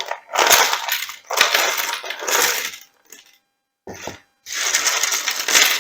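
Many small wooden jigsaw puzzle pieces spilling out and clattering against each other, in a long spell, a short pause, then a second spell.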